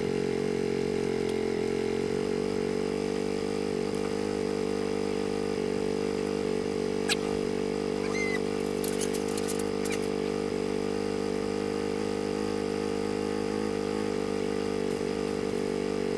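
Polaris Ranger utility vehicle's engine running at a steady pace while it drives. There is one sharp click about seven seconds in and a few brief rattles around nine seconds.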